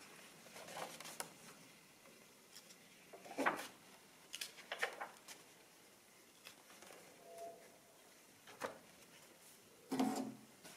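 Paper handling: a booklet and a thin manual shuffled and their pages turned, in a series of short soft rustles and knocks. The loudest is a thud near the end as a booklet is set down on the calculator's top.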